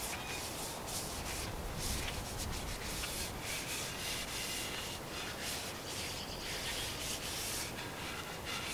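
Repeated rough rubbing strokes along a wooden axe handle, about two a second, as its factory varnish is stripped off.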